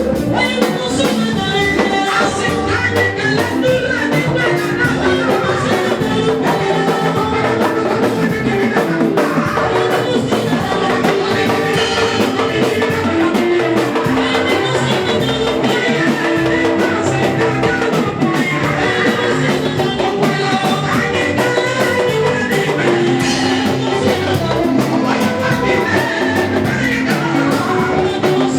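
Live worship band music with drum kit and guitar, playing steadily and without a break.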